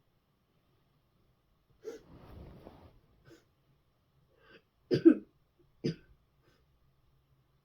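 A person coughing hard: a rough, drawn-out sound about two seconds in, then a burst of loud coughs, two close together and a third a second later.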